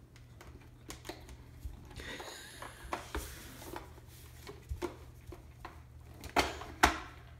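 Plastic toy push lawnmower clicking and clattering on a hardwood floor as a toddler climbs on and scoots it along, with a rolling rattle about two seconds in and two sharp knocks near the end.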